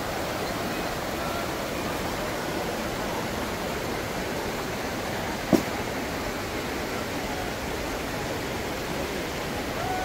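Steady rushing of water falling at a waterfall, an even roar at a constant level. A single brief sharp click cuts through it about halfway.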